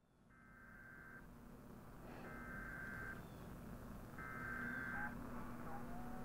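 Three long electronic beeps, each just under a second and about a second apart, over a steady low hum and hiss that fade in from silence at the start. Near the end come a few faint gliding whistles.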